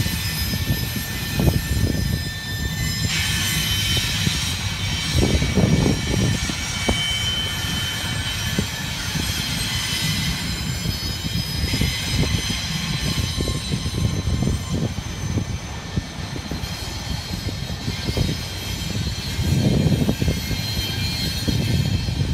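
Double-stack intermodal train rolling past: a steady rumble of the well cars with scattered clicks of wheels over rail joints, and thin, steady high-pitched wheel squeal running above it.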